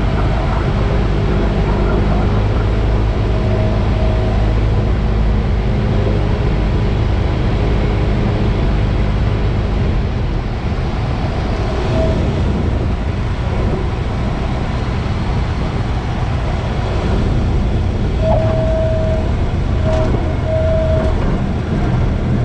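Cessna's single piston engine and propeller running steadily at high power, with a few short tones near the end.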